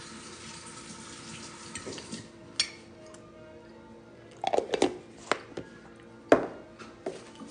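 Scattered sharp clinks and knocks of tableware: utensils against dishes while eating, in a loose cluster around the middle, with the loudest about six seconds in. Faint background music runs underneath.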